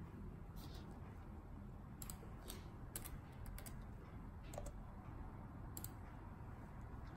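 Faint computer keyboard keystrokes: irregular single clicks and quick pairs, about one every half second to a second, over a low steady hum.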